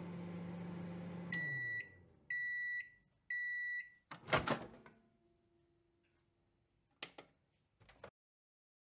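Microwave oven running with a low hum that winds down as the timer runs out, then three long high beeps about a second apart. A loud clunk follows as the door is opened, then two light clicks.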